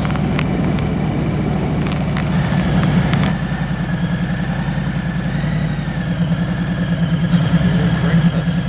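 V-twin cruiser motorcycle engine running with a steady pulsing beat. It swells briefly about three seconds in, then drops back.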